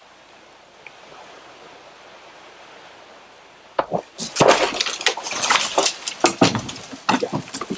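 A felled tree coming down: after a faint steady hiss, a sudden loud, dense run of cracking and snapping branches with rustling leaves starts about four seconds in and keeps going.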